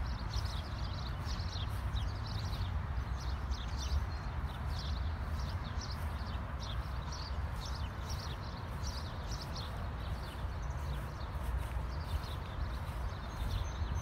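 A dense chorus of many small birds chirping, their short high calls overlapping without a break, over a steady low rumble.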